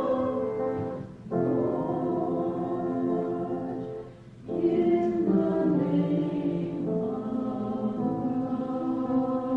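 Choir singing sacred music in long held chords, with brief breaks between phrases about one and four seconds in.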